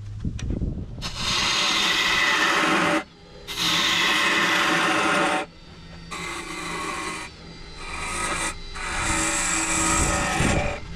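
Wood lathe turning a live oak top while a hand-held turning tool cuts it: a rough scraping hiss in passes, two loud ones of about two seconds each, then several softer ones, over a low steady hum from the lathe.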